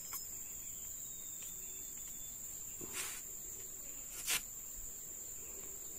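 A steady high-pitched insect trill, like crickets, with two short knocks about three and four seconds in, the second the louder.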